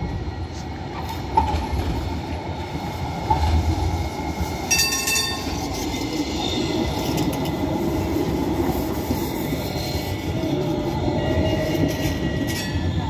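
RET tram rolling past close by on curved track, its wheels and running gear rumbling, with a faint steady wheel squeal from the curve. A brief sharp high sound cuts in about five seconds in.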